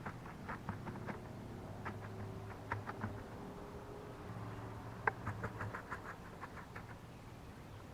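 Soil being scooped and dropped into small holes in a lawn: irregular light clicks, scrapes and pattering, with a quick run of ticks about five seconds in.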